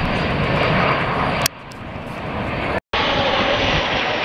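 Jet aircraft in formation flying past with a steady roar. About a third of the way in the sound drops sharply, builds back up, cuts out for an instant, then returns at full level.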